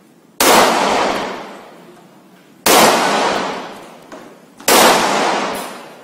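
CZ Shadow 2 9mm pistol firing three shots about two seconds apart, each ringing out in a long echo that fades over about a second and a half.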